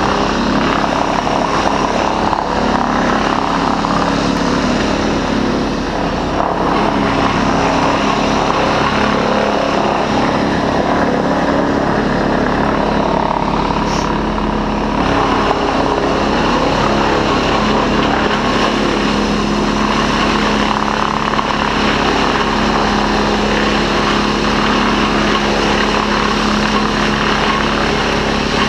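An engine running steadily at constant speed, a continuous loud drone with no revving.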